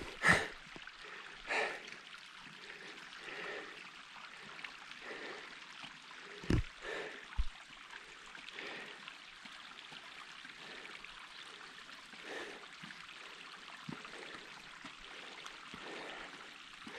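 A climber breathing hard in a steady rhythm while scrambling up steep bare rock, over a faint hiss, with a few soft knocks and scuffs; the loudest pair comes a little past a third of the way in.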